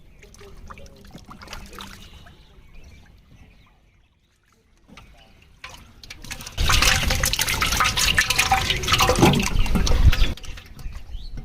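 Water splashing and pouring: faint at first, then loud and dense for about four seconds in the second half, stopping abruptly.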